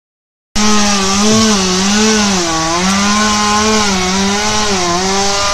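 Chainsaw cutting into a tree, its engine running at high revs with the pitch sagging and recovering every second or so as the chain bites.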